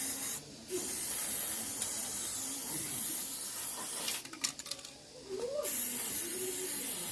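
A steady, high hiss, like a spray or a jet of air, that stops for about a second and a half around four seconds in and then starts again.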